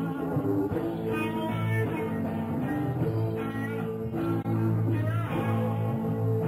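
Rock band playing live: electric guitar lines bending over bass and held chords.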